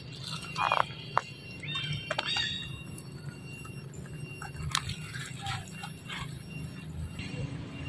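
A long-tailed macaque crunching and tearing the leaves of a Chinese cabbage, with sharp snaps now and then. Birds chirp in the background, loudest in the first two seconds.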